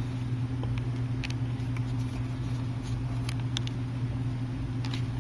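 A steady low electrical hum, with a few faint light clicks from a pentalobe screwdriver working the small bottom screws of an iPhone.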